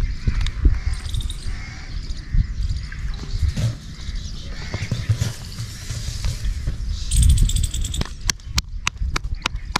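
Hands patting and slapping roti dough by a tandoor in the first few seconds, with birds chirping over a low rumble. A run of sharp clicks comes near the end.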